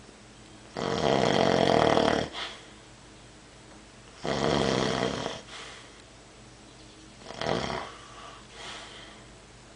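A sleeper snoring in slow breaths, each snore a rasping rattle lasting one to one and a half seconds: three loud snores a few seconds apart, then a fainter one near the end.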